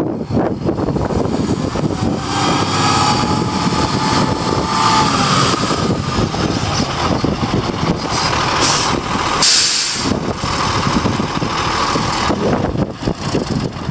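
A 1996 International 8100 single-axle truck's diesel engine running as the truck rolls up over gravel and stops, with a wavering squeal while it slows a few seconds in. About nine seconds in, a sharp burst of air hiss comes as the air brakes are set, and then the engine idles.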